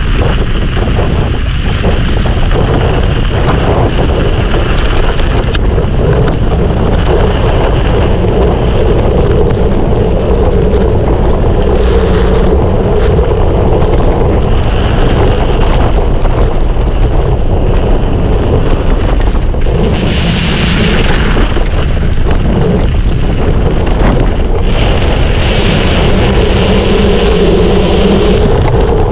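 Steady wind rush on the microphone over the constant rolling rumble of a mountain bike riding down a trail.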